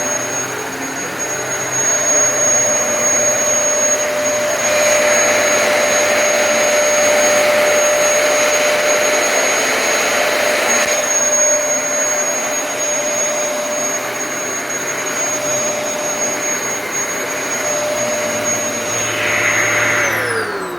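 Dyson DC33 upright vacuum cleaner running, a steady high motor whine over a rush of suction as it cleans the floor. Near the end it is switched off and the whine falls away as the motor spins down.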